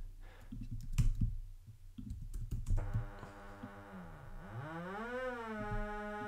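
Computer clicks and key taps, then, about three seconds in, a Max MSP FM-synthesis patch (one sine oscillator modulating another) starts sounding: a tone rich in evenly spaced overtones that slides down in pitch, rises again as the pitch value is changed, and settles into a steady tone near the end.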